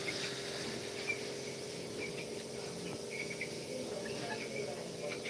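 Outdoor ambience of insects chirring steadily, with a few short, faint chirps scattered over it.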